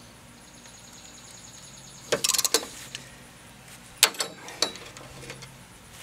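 Socket ratchet wrench clicking in two short quick runs as a rusted mower-deck spindle bolt is worked, with one sharp metallic crack about four seconds in.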